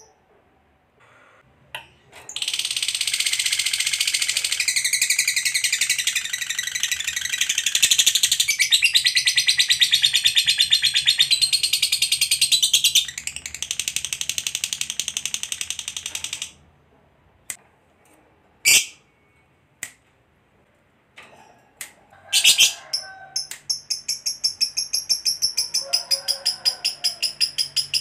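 Lovebird ngekek: a long, rapid, high-pitched chattering trill lasting about fourteen seconds, then a few single sharp chirps, then a second rapid trill starting near the end. This is the long 'ngekek panjang' trill that keepers prize.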